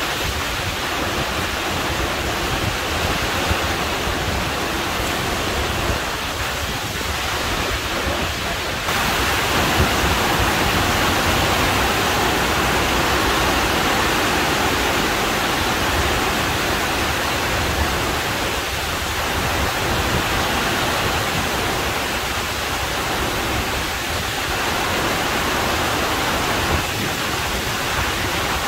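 Heavy rain pouring steadily, a dense even hiss that gets abruptly louder about nine seconds in.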